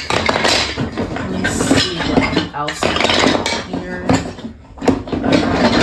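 Wooden toy train track pieces clattering and knocking against each other as a hand rummages through a plastic storage bin full of them.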